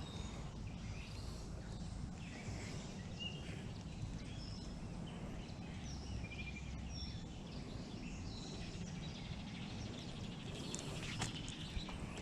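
Outdoor riverside ambience: scattered short bird chirps over a steady low rumble, with a brief rustle or clatter near the end.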